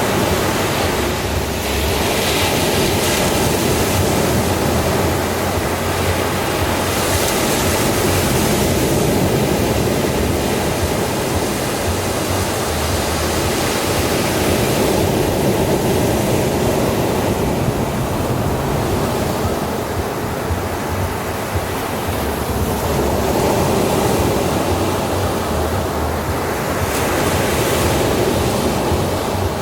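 Ocean waves breaking and washing up on a beach, a continuous surf that swells and eases every several seconds.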